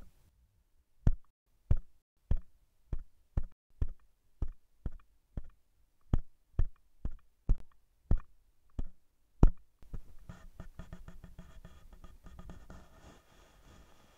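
A run of sharp knocks at a steady pace, about two a second, some fifteen strikes. About ten seconds in they stop and give way to a fainter, dense crackling rattle with a thin high tone coming in near the end.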